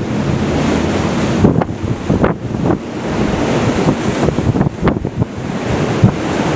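Strong wind buffeting the microphone: a loud, gusty rumble with sharp pops as gusts hit.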